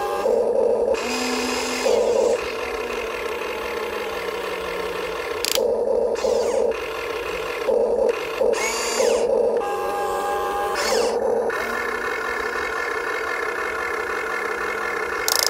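Radio-controlled excavator working, with a steady electric motor whine and louder surges every few seconds as it moves.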